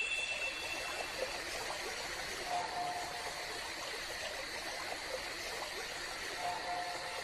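Steady, even hiss of water ambience, like rain on a pond, with two faint short tones about two and a half and six and a half seconds in.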